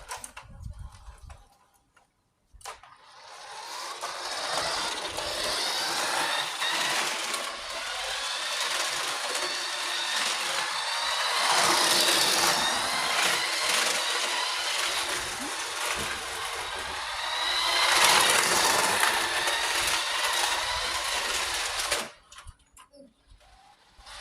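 Toy remote-control car's small electric motor and gears whirring as it drives, the whine rising and falling with speed. It starts about three seconds in and stops suddenly near the end.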